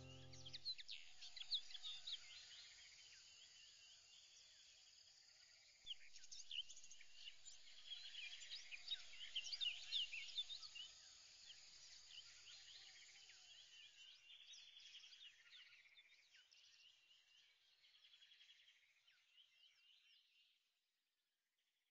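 Faint birdsong: many quick, high chirps overlapping. They get louder about six seconds in and fade out near the end.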